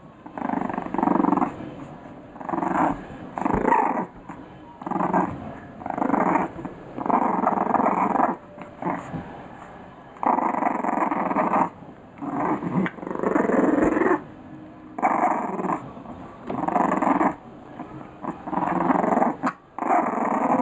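Three-week-old English Bulldog puppies growling at each other as they play-fight. The growls come in short bursts, each up to about a second and a half long, over and over with brief pauses.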